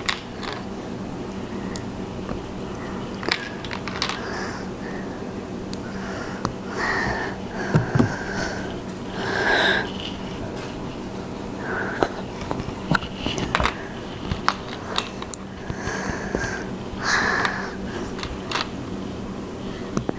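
Small plastic LEGO pieces clicking and tapping as they are handled and pressed together, with several sniffs between, over a steady low hum.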